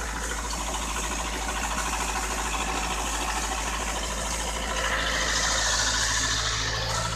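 Zetor 7745 tractor's four-cylinder diesel engine running steadily under ploughing load, heard from inside the cab. About five seconds in it grows a little louder and brighter.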